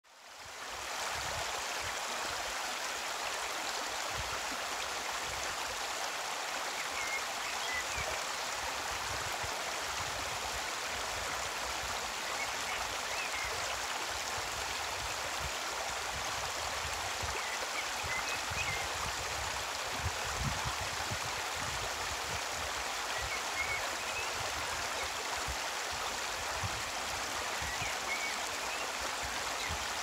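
Shallow stream running steadily over a stony, pebbly bed, with a bird chirping faintly every few seconds.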